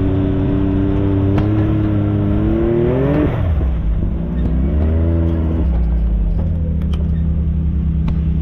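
A side-by-side UTV engine running and revving up, rising in pitch for about three seconds before dropping back, then a second shorter rev about five seconds in. After that it settles into a steady, low, pulsing run.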